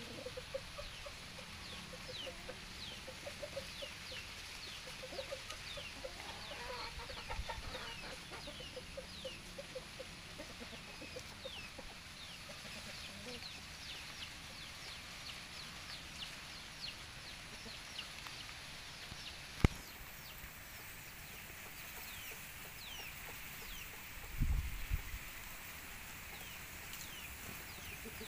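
Chickens clucking in a quick run of short notes for the first nine seconds or so, over many short high chirps that run throughout. A single sharp click comes about twenty seconds in, and a brief low thump a few seconds later.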